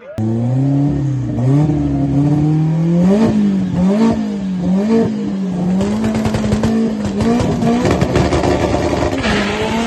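Drag-racing car engine running hard under throttle, its pitch climbing and then swinging up and down over and over, with a rough, rattly edge later on.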